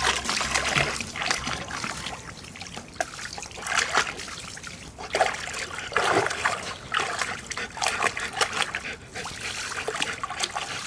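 Water splashing and sloshing in a plastic kiddie pool packed with water balloons as a golden retriever moves and paws around in it, in irregular splashes.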